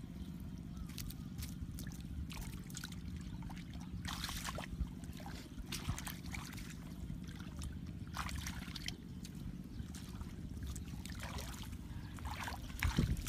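Hands and bare feet sloshing and splashing in a shallow muddy puddle, in scattered short splashes over a steady low rumble.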